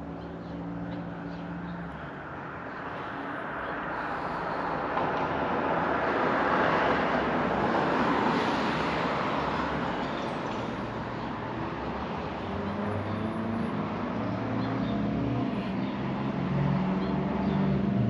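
Road traffic going by: a vehicle passes, its noise swelling for a few seconds and then fading. After that a lower engine hum builds toward the end.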